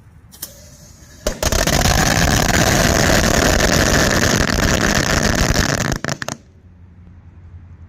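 A 1,000-piece roll of firecrackers going off inside a toaster oven with its door taped shut: a single pop, then about five seconds of rapid, continuous crackling bangs, ending in a few last cracks.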